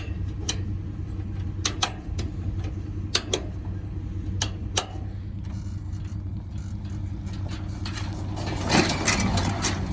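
A vehicle engine idling with a steady low hum, while metal mud flap clamp hardware is handled with scattered sharp clicks and knocks and a short clattering rattle near the end.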